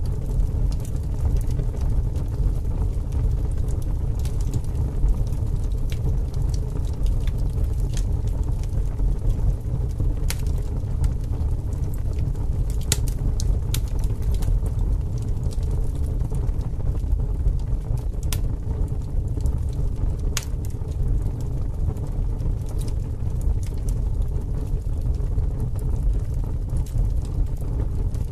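Steady low rumbling noise with scattered sharp crackles and clicks over it.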